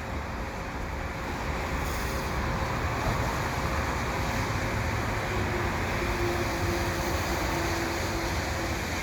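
Steady rumble and hiss of vehicle noise, with a faint steady hum above it and a second faint tone partway through.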